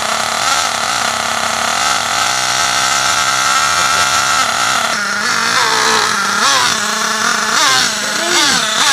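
Nitro RC monster truck's small glow-fuel engine running at a steady speed, then revved up and down repeatedly from about five seconds in.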